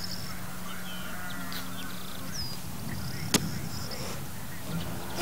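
Outdoor ambience with scattered birds chirping in short whistles and trills over a steady low hum that fades about two seconds in. One sharp click comes about three and a half seconds in.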